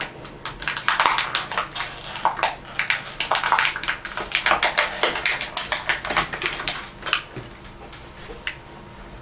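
Small plastic toy pieces and their plastic packaging being handled: a fast, irregular run of clicks and crinkles that thins out after about seven seconds to a couple of single clicks.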